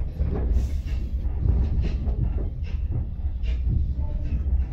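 Railway carriage running slowly, heard from inside: a steady low rumble with irregular knocks and clacks from the wheels and couplings.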